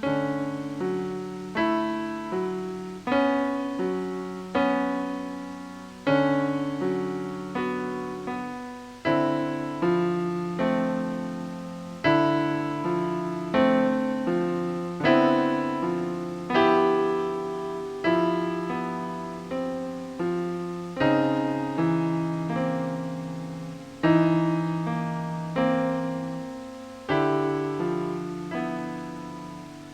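Slow ambient piano music: single notes and low chords struck about every second or so, each left to ring and fade before the next.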